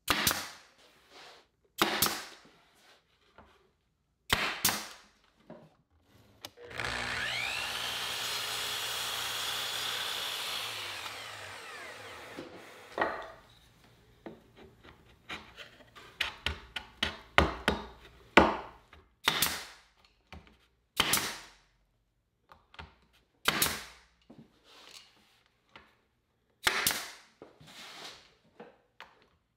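Pneumatic nail gun driving 1.75-inch nails into plywood strips, a string of sharp shots one to two seconds apart with lighter knocks of wood pieces being set in place. About seven seconds in, a power tool whirs for several seconds and winds down.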